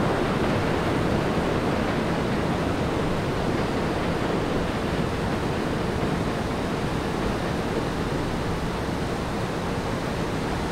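Distant, steady rushing rumble of a Kawasaki R211A subway train running on elevated track, fading slowly as it pulls into the station, with a faint steady hum.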